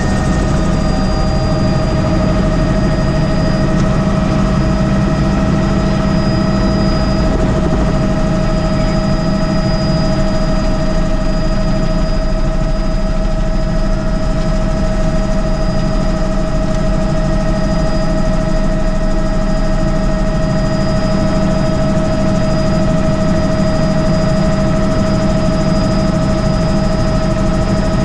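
Helicopter engine and rotor, heard from inside the cabin: a steady low rumble with a constant high whine, as the helicopter lifts off and climbs.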